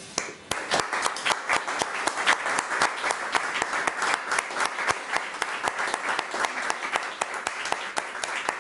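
Audience applause breaking out suddenly and continuing, many separate sharp claps standing out.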